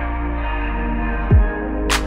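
Background electronic music: held synth chords, with a falling bass hit about a second and a half in and a sharp noise hit near the end.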